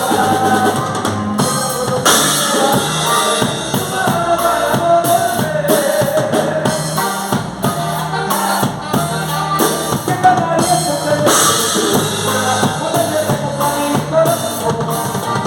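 Instrumental passage of a band's song: a drum kit with bass drum and snare keeps a steady beat under a wandering melodic lead line, with no singing.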